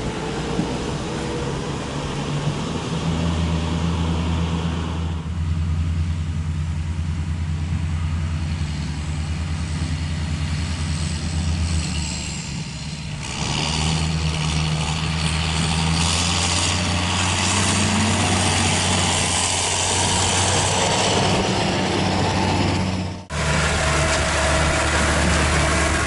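John Deere 6820 tractor's straight-piped six-cylinder diesel running steadily with a deep drone while it pulls a trailer loaded with sugar beet. Near the end the sound breaks off abruptly and a different engine takes over: an Agrifac Big Six beet harvester running.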